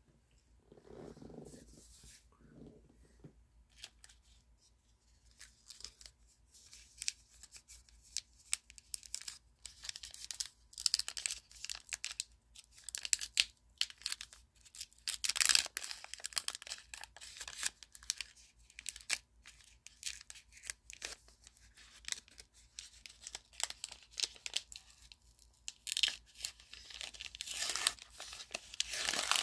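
Trading-card pack wrapper being torn open and crinkled, in scratchy bursts with louder rips about halfway through and again near the end.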